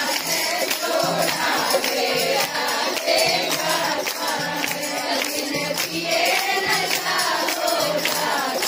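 A group of voices singing a Hindi devotional song, accompanied by a steady percussion beat with sharp jingling strokes.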